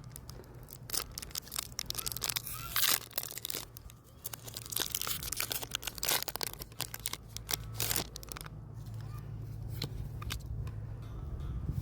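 Foil booster pack wrapper of Pokémon trading cards being torn open and crinkled, a run of irregular tears and crackles.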